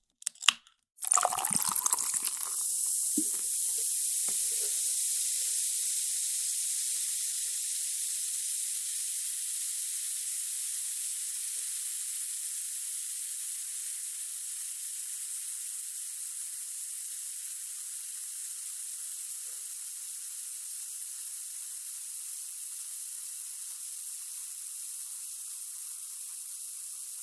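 A soda can's tab cracking open near the start, then carbonated soda poured for a couple of seconds with a few drips and splashes. After that a steady fizzing hiss of carbonation bubbles, slowly fading.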